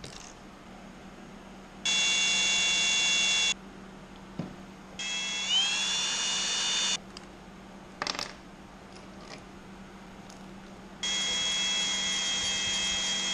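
Cordless drill with a fresh bit running in three short spells as it bores a hole in an aircraft engine's steel exhaust pipe for an EGT sensor; the second spell rises in pitch as the drill speeds up. A few light clicks come in the pauses.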